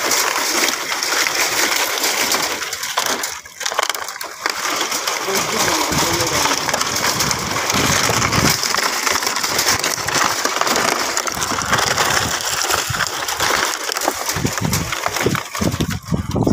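Crumpled plastic sheeting crinkling and crackling as rubbish is handled and gathered up, with dry debris crunching.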